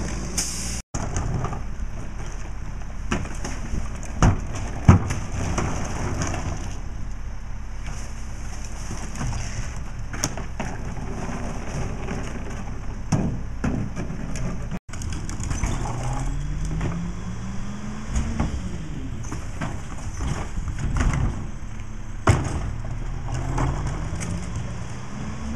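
Rear-loader garbage truck's diesel engine idling, with loud knocks and clatter as trash carts are tipped and banged into the hopper. Past the middle, the engine's pitch rises for a few seconds.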